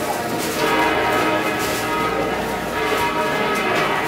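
Church bells pealing, several bells struck over and over with their tones hanging on and overlapping.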